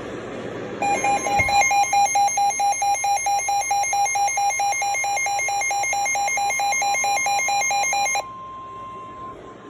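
Weather radio alert: a loud two-tone electronic alarm alternates about four times a second over the steady 1050 Hz NOAA Weather Radio warning tone, signalling a severe thunderstorm warning. The alarm cuts off after about eight seconds, and the plain steady tone carries on alone until near the end.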